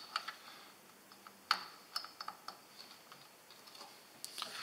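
Scattered light plastic clicks and taps as small wire connectors are pushed onto pin headers and the wiring is handled, the sharpest click about a second and a half in.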